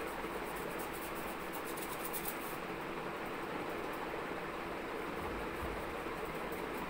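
Steady, even background noise of a small room, with faint light crackling during the first couple of seconds.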